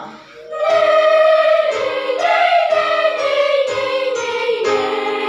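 Children's choir singing a sustained melody over accompaniment chords struck about once a second. The singing drops away right at the start and comes back in less than a second later.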